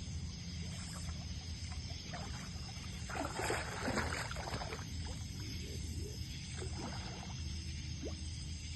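Water splashing in irregular bursts, strongest about three to five seconds in and again more faintly near the end, over a steady low rumble.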